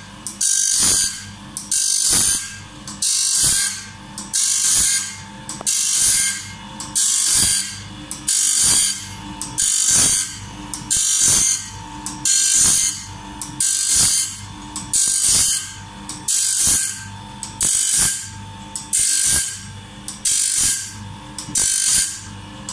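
Electric bandsaw blade sharpener grinding a sawmill band blade tooth by tooth. The abrasive wheel hisses against each tooth for most of a second, then there is a short click as the feed arm pushes the blade on to the next tooth. The cycle repeats evenly about once a second.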